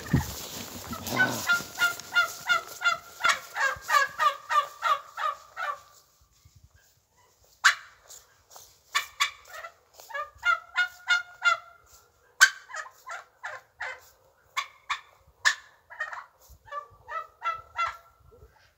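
Domestic fowl calling in fast runs of short honking notes, about four a second. One long run comes in the first six seconds, and after a pause of about two seconds several more runs follow.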